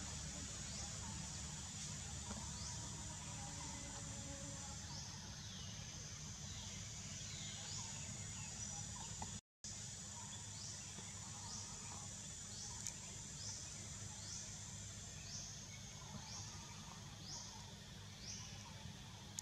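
Forest ambience: a steady high insect drone with a short high chirp repeating about every two-thirds of a second, over a low background rumble. The sound drops out completely for a moment about halfway through.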